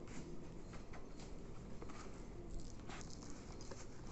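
Faint rustling and light taps of fabric therapy sole pads being handled and fitted onto bare feet, over a low steady room hum.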